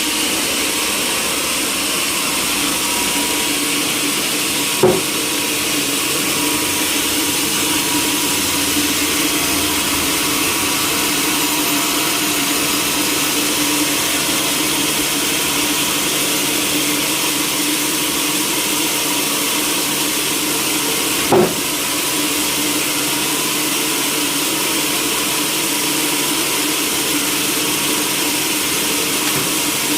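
Sawmill machinery running steadily with a constant hum, broken twice by a brief sharp knock.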